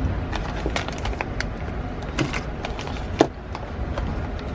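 Small plastic bags of aluminium AN hose fittings rustling and clicking as they are handled and sorted, with one sharper clack about three seconds in, over a steady low background rumble.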